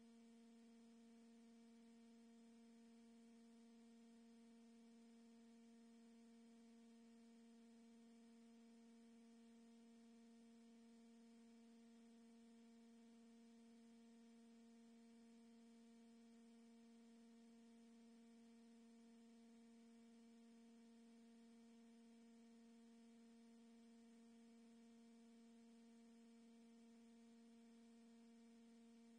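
Near silence with a faint, steady electrical hum: a low tone with several higher overtones that never changes.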